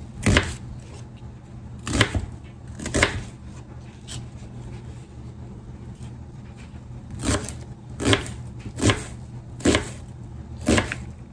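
Kitchen knife chopping a peeled onion on a thin plastic cutting mat over a stone countertop: eight separate sharp chops, three in the first three seconds, then after a pause five more at about one a second.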